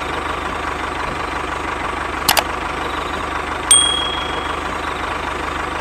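Steady idling engine sound with a regular low pulse, of the kind a tractor makes. Two quick clicks come a little past two seconds in, and a sharp click with a short high ring comes near the middle.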